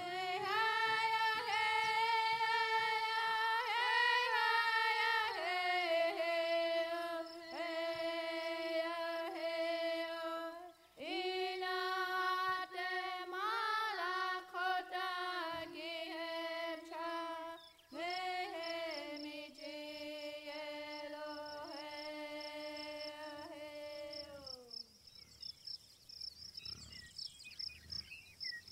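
A slow, wordless solo melody of long held notes that slide gently from one pitch to the next, ending about 24 seconds in. A high, rapid chirping comes in behind it near the end and goes on after the melody stops.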